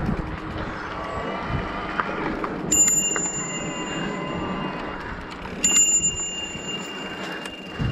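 Handlebar bicycle bell rung twice, about three seconds apart, each ding ringing on for a couple of seconds.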